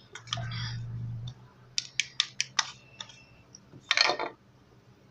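A small spoon clicking and scraping against a bowl while stirring a thick flour-and-toothpaste dough: a quick run of about five clicks in the middle, then a louder scrape near the end.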